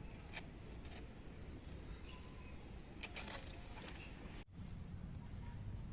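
Faint outdoor ambience with small birds chirping now and then, a few brief rustling clicks, and a sudden cut a little past halfway.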